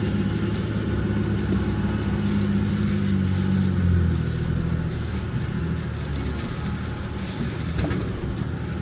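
Jeep Gladiator's diesel engine idling steadily while the truck holds in place.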